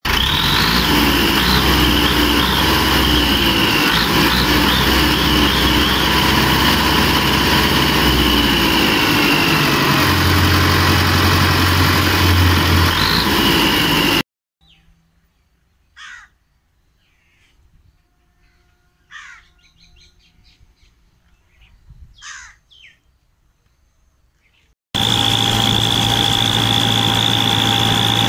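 Massey Ferguson 1080 tractor's diesel engine running loudly and steadily, its low note shifting briefly about ten seconds in. Midway the engine sound cuts off abruptly to a quiet stretch in which crows caw three or four times. The engine sound then returns suddenly, running at an even pace as the tractor drives on the road.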